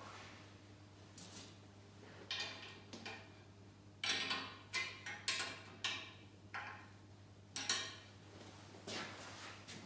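Wrench or spanner clinking against steel nuts and bolts as they are tightened on the bender's frame: irregular sharp metallic clicks and knocks, several of them about a second apart, over a faint hum.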